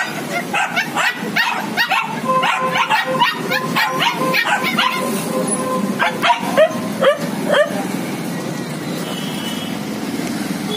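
Dogs barking and yipping in a rapid run of short, high calls that stops about eight seconds in, leaving steady background noise.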